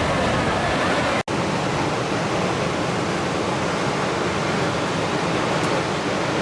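Water released from Miyagase Dam rushing and plunging in a steady, heavy torrent. The sound cuts out for an instant about a second in.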